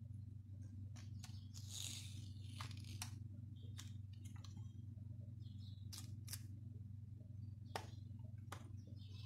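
Faint handling sounds of a silicone mould being flexed and pressed to pop out chocolate hearts: a scattered series of soft clicks with a brief rustle about two seconds in, over a steady low hum.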